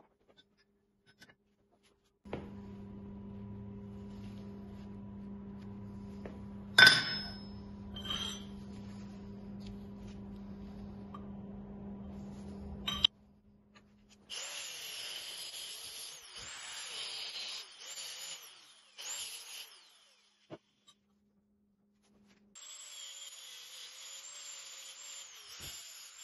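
Angle grinder working metal clamped in a bench vise: a few short bursts, then a steady run near the end with a high whine that wavers as the disc bites. Earlier, a steady motor hum with one loud metal clang and a smaller one.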